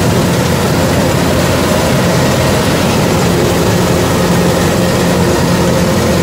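Kubota DC-105X rice combine harvester running steadily with a loud, even engine drone.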